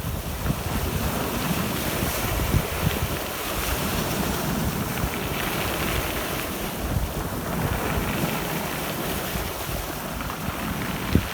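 Black Sea surf: waves breaking and washing up the shore in slow swells, with wind buffeting the microphone as a gusty low rumble.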